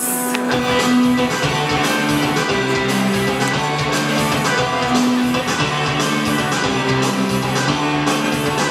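Rock-style song starting suddenly with guitar and a steady drum beat: the instrumental intro, before any singing.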